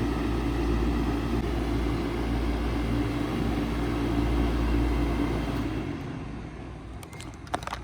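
1995 Bard 3.5-ton wall-hung heat pump in cooling mode running with a steady hum, then shutting down about six seconds in as the sound winds down and fades. A few sharp clicks come near the end.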